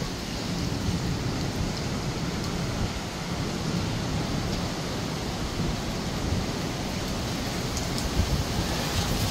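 Heavy rain pouring down steadily, an even rushing noise without breaks.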